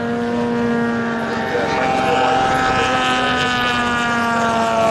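Engine of a giant-scale radio-controlled propeller model plane running in flight, a steady drone whose pitch slides slowly down as the plane passes.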